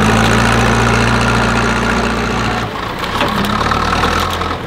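Backhoe loader's diesel engine running under load as its bucket pushes the car over. The engine note breaks a little past halfway and comes back at a changed pitch.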